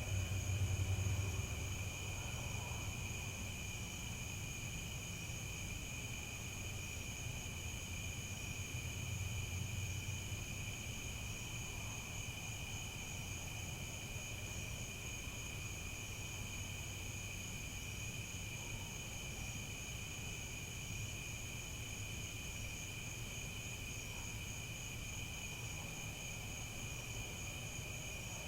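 Crickets chirping in a steady, continuous high-pitched chorus, over a low rumble that is louder in the first couple of seconds.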